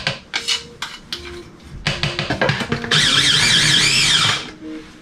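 A small electric food processor runs in one pulse of about a second and a half, starting about three seconds in, with a wavering whine as it chops wet, grated carrot. A few sharp clicks of the plastic bowl and lid being handled come in the first second, over background music with plucked-string notes.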